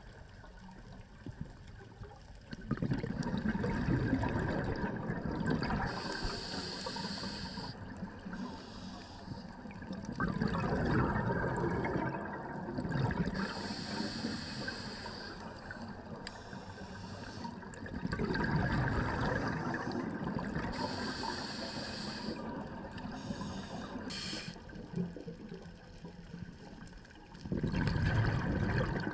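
Scuba diver breathing through a regulator underwater: a short hissing inhale, then a longer rush of exhaled bubbles, repeating about every eight seconds, four breaths in all.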